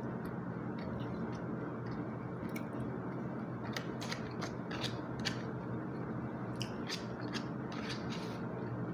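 Eating sounds: chewing, with short clicks and scrapes of a plastic spoon scooping rice in a plastic meal tray, coming in clusters through the second half, over a steady background hiss.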